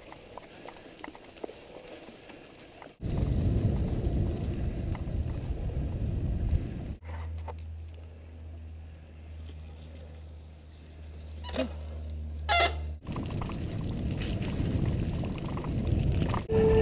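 Mountain bike ridden along a wet dirt trail, heard from a camera mounted on the bike or rider: low rumble of wind and tyres on the microphone, in several cut-together stretches. In a quieter stretch in the middle a steady low hum runs, with two brief rising squeals near its end.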